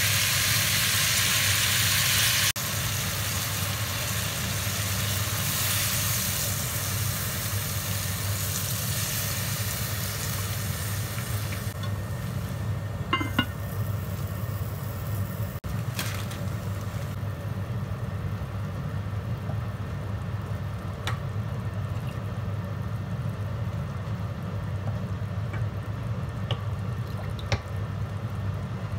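Green beans and pork sizzling in a pot, with loud steam hissing that drops off suddenly after a couple of seconds and then fades away as the pot stays covered. A steady low hum runs underneath, with a few light clicks near the end.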